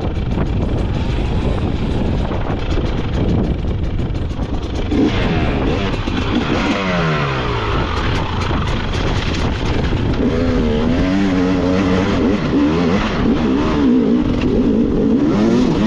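Enduro motorcycle engine under way, its revs rising and falling with the throttle: a long drop in revs about six seconds in, then wavering on-off revs in the last few seconds. Heavy wind noise on the microphone.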